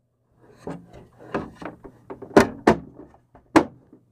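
Plastic toy food truck's hinged panels being folded shut and handled: a series of plastic clicks and knocks, with three sharper knocks in the second half.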